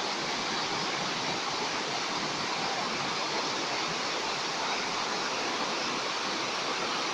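Waterfall: water cascading down stepped rock into a pool, a steady, even rushing noise.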